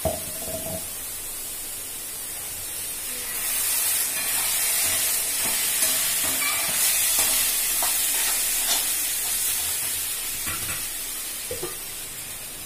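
A steel slotted spatula stirring and scraping a coriander mixture in a kadai, with scattered clicks against the pan over a steady frying sizzle that grows louder a few seconds in.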